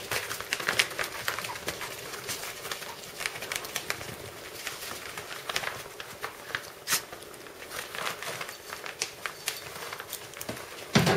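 Five-week-old puppies playing on soft bedding: paws scrabbling and fabric rustling in a run of short scratchy clicks, with soft puppy grunts and squeaks, and one louder bump near the end.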